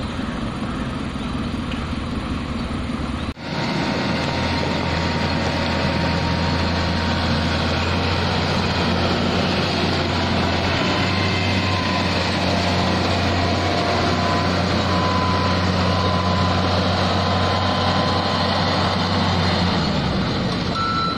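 Heavy road-construction machinery engines running steadily. About three seconds in the sound cuts to a louder, deeper engine drone that holds steady.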